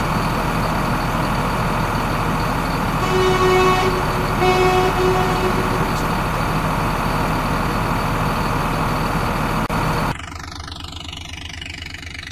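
Truck engine sound effect running steadily, with two horn honks about three and four and a half seconds in, the second longer. About ten seconds in it cuts off to a quieter, different sound.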